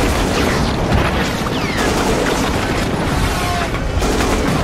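War-film battle sound effects: a continuous din of gunfire and booming explosions, with a few brief whistles.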